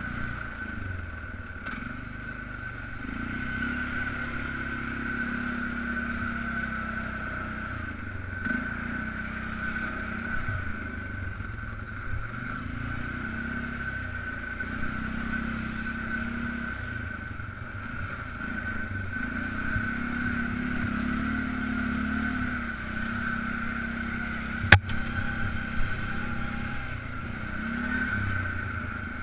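Polaris Sportsman 500 ATV's single-cylinder four-stroke engine running under way, its revs rising and easing several times, with a steady high whine alongside. Late on comes a single sharp knock, the loudest sound.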